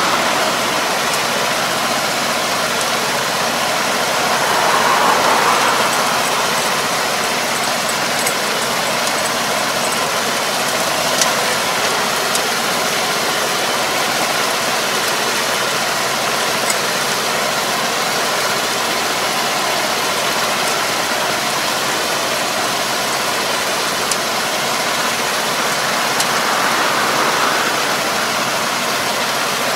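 Tractor engine running steadily as it pulls a drive harrow through a flooded rice paddy, mixed with a steady wash of churning water and mud from the harrow.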